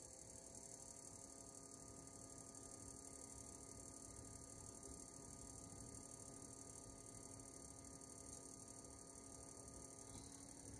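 Faint, steady hum and high electronic whine of an induction cooktop element heating a stainless steel pot of water, before the water boils.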